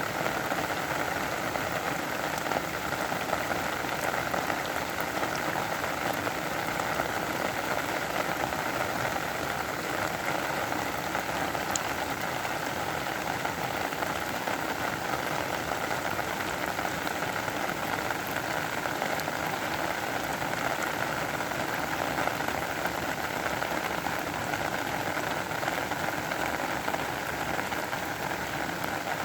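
Steady rain falling, a dense, even hiss of drops that does not let up.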